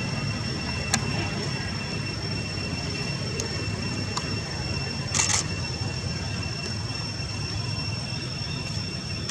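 Steady background rumble with a thin, steady high whine, a single sharp click about a second in and a brief hiss about five seconds in.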